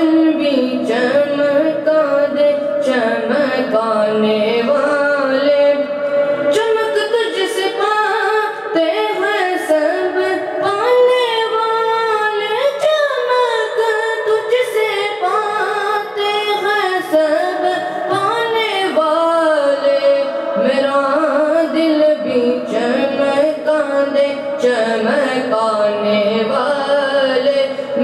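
A boy's solo voice singing a naat, an Urdu devotional poem, in long ornamented melodic lines that bend and glide in pitch, with no instruments.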